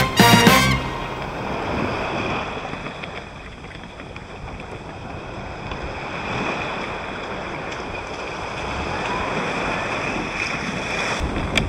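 Sea water lapping and splashing around a sea kayak's hull, with wind on the microphone.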